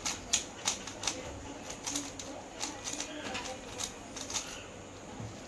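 A 3×3 Rubik's cube being turned quickly by hand, its plastic layers clicking in irregular sharp snaps, sometimes two in quick succession.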